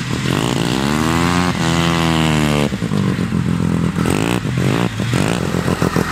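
Vintage snowmobile engine revving up and easing off over a couple of seconds, then blipped up briefly twice more.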